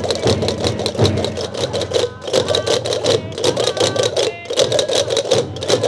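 Gomeran chácaras, large wooden castanets, clattering in a fast, even rhythm together with rope-tensioned tambores (drums) beating along.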